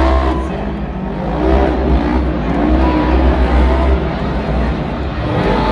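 Engines of small side-by-side race vehicles revving up and down as they race around a dirt arena floor, over a steady low rumble echoing in the arena.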